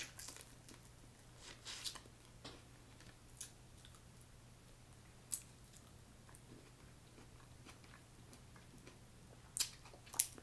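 Close-up mouth sounds of a person eating boiled snow crab meat: sparse wet smacks and chewing clicks, a cluster about a second and a half in, one around five seconds, and two sharper ones near the end.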